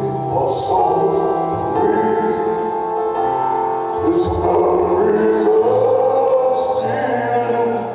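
Live concert music from a band led by piano, with a man singing.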